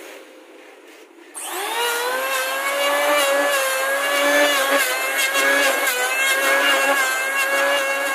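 Electric hand planer switched on about a second in: its motor spins up with a rising whine, then runs at a steady, loud high whine.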